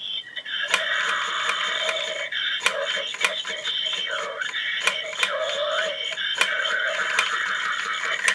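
Battery-powered animated Halloween skull prop playing its loud recorded soundtrack through a small built-in speaker, tinny and electronic-sounding, with repeated sharp clicks throughout. It cuts off suddenly at the end.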